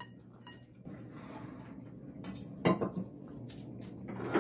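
Forks clinking and scraping against a ceramic noodle bowl during eating, with a few louder clatters and slurps of noodles, the loudest two near the middle and at the end.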